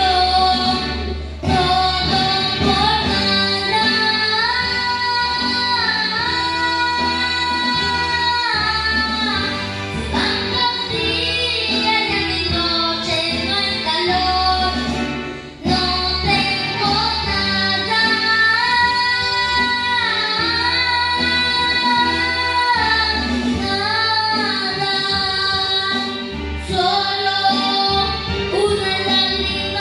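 A boy singing into a microphone over a music backing track with a steady bass line, holding long notes.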